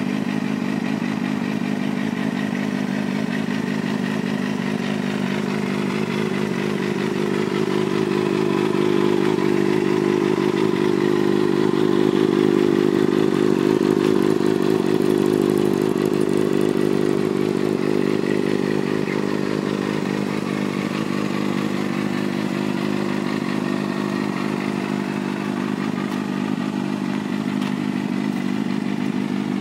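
Kawasaki ZXR250 sportbike engine, freshly rebuilt, idling steadily through its silver slip-on exhaust silencer. Its revs rise gently about a third of the way in, hold for several seconds, then settle back to idle.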